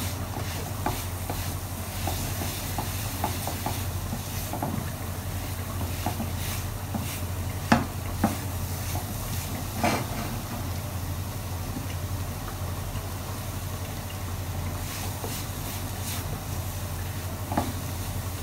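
Silicone spatula stirring and scraping a sticky coconut and condensed-milk mixture in a nonstick frying pan, with a few louder knocks against the pan, over a steady low hum. The mixture is being cooked over a low flame until thick enough to roll into balls.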